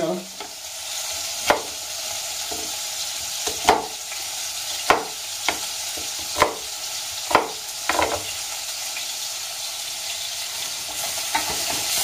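Beef pieces browning in hot oil in a steel pot, sizzling steadily, while a knife cuts an onion on a plastic cutting board. There are about seven sharp, unevenly spaced knocks between about one and a half and eight seconds in.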